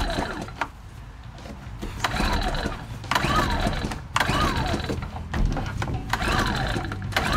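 Recoil starter of a portable inverter generator being pulled over and over, about once a second, each pull a short whirr that rises and falls in pitch. The engine does not catch.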